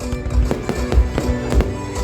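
Loud music with a steady thumping beat, with sharp bangs of fireworks bursting mixed in.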